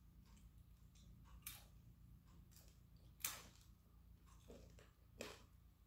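Near silence with a few faint, sharp clicks from fingers picking small snack pieces out of the palm, the loudest about three seconds in.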